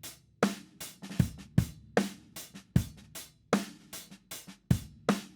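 Playback of a drum-room microphone recording of a full drum kit: kick, snare and cymbals in a steady beat, run through an API 2500-style bus compressor set at a 6:1 ratio with a hard knee.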